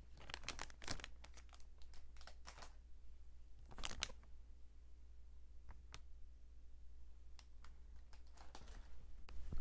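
Plastic wrappers of Tim Tam biscuit packets crinkling as the packets are handled, in irregular crackles, with a louder rustle about four seconds in.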